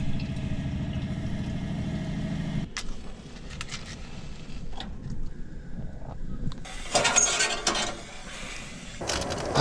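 Small electric water pump humming steadily as a kettle fills at the campervan tap, stopping about two and a half seconds in. Then a few light clicks and knocks, and a short loud rushing burst about seven seconds in, as the gas hob is lit with a match and the kettle set on it.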